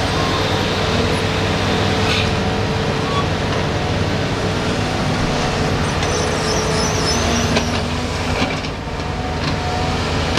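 Caterpillar 320 hydraulic excavator working: its diesel engine runs steadily under load, with a steady hydraulic whine, as the machine swings and digs into a coal pile.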